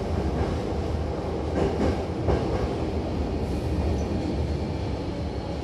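Hankyu commuter train running, heard from inside the car: a steady low rumble with a few clicks of the wheels over rail joints about two seconds in.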